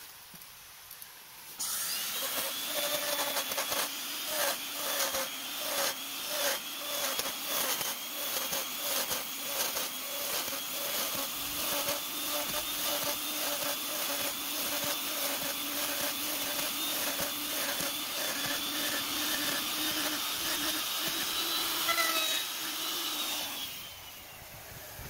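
Electric hand router cutting a slot into a palm-wood beam. The motor starts suddenly about two seconds in and runs with a steady high whine, the cutting noise swelling and dipping as the bit works through the wood. It winds down and stops near the end.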